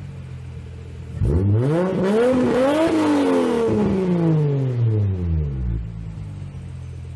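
A car engine idling, then revved once about a second in: the pitch climbs for about a second and a half, then falls slowly back to idle over the next three seconds.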